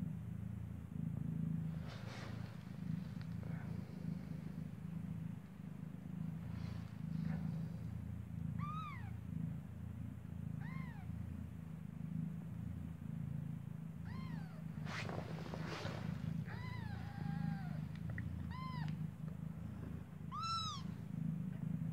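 Mother cat purring steadily while her newborn kitten, eyes not yet open, gives about six short high-pitched mews from about halfway through: the hungry kitten is searching for a teat and cannot find one. A few brief rustles of fur and bedding.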